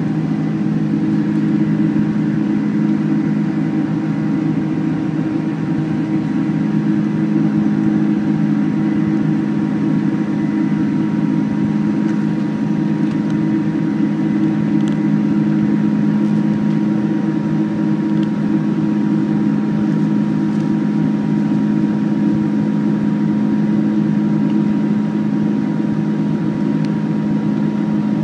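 Steady cabin drone of a Boeing 747-400 climbing after takeoff: a low hum of engines and airflow, with faint high steady tones above it.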